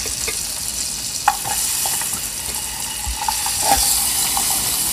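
Seasonings sizzling as they fry in margarine in a pan, with a few sharp clicks of a utensil stirring against the pan.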